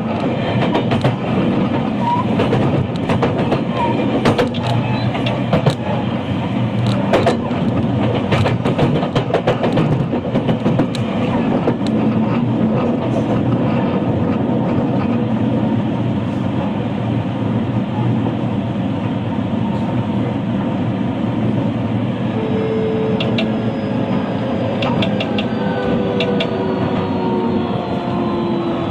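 Running sound inside a JR West 223 series electric multiple unit's motor car: steady rumble of wheels on rail, with sharp clicks over rail joints in the first half. From about two-thirds of the way in, the traction motors' whine sets in and falls steadily in pitch as the train slows under braking.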